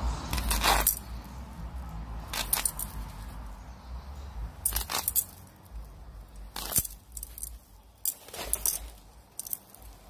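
Handling sounds of gloved hands working concrete-soaked fabric over a planter form: about half a dozen short, sharp scrapes and rustles at irregular intervals.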